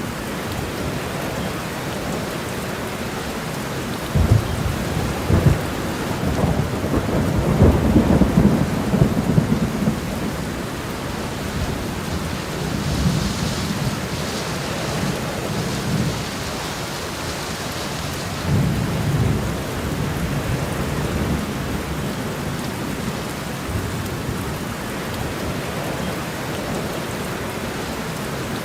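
Steady heavy rain with rolling thunder: a long low rumble builds about four seconds in and lasts several seconds, and a shorter rumble comes past the middle.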